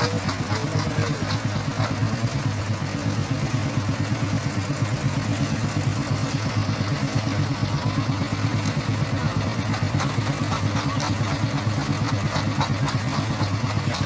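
Engine of construction machinery running steadily at a constant speed, a low, even drone that does not change throughout.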